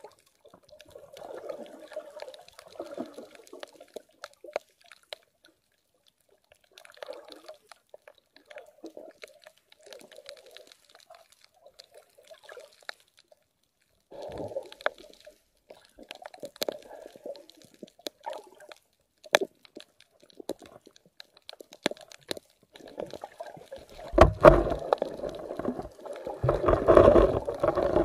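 Muffled underwater sound of shallow seawater stirring, with scattered sharp clicks throughout. It grows louder and fuller in the last few seconds, as a swimmer moves right by the camera.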